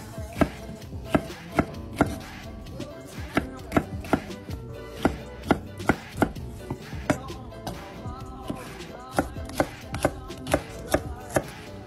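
Chef's knife chopping celery on a bamboo cutting board: sharp knocks of the blade meeting the wood, in an uneven rhythm of about two a second.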